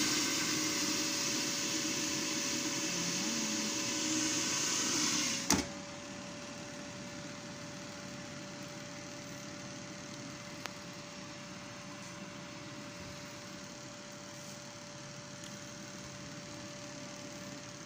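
Philips air fryer running: its fan gives a steady hum with a thin whine. About five and a half seconds in, a sharp click, after which the sound drops to a quieter, even hum.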